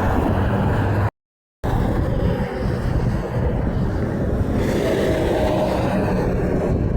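Highway traffic passing, a steady rumble of vehicles with wind buffeting the microphone. The sound cuts out completely for about half a second about a second in.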